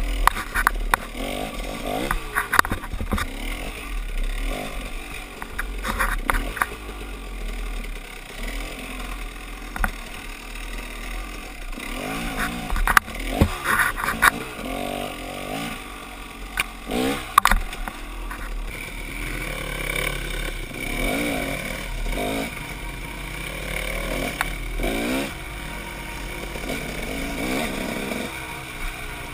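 Dirt bike engine revving up and down as it is ridden at low speed, with repeated sharp clatters and scrapes of brush and branches hitting the bike, loudest about halfway through.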